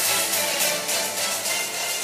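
Music, slowly growing quieter.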